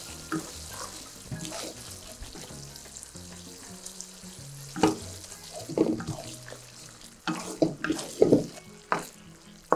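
Thick chilli sambal sizzling in a nonstick wok while a wooden spatula stirs it, scraping and knocking against the pan in a run of short strokes in the second half.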